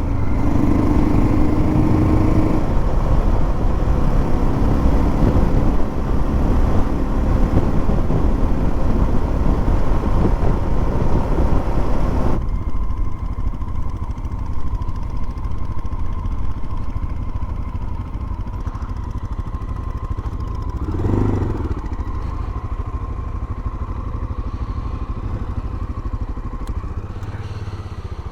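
Motorcycle running at highway speed with heavy wind noise on the microphone. About twelve seconds in the sound drops suddenly to a duller, quieter engine-and-road rumble.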